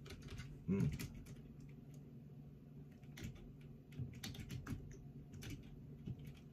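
Irregular clicking of typing on a computer keyboard, with a brief hum of a voice just under a second in.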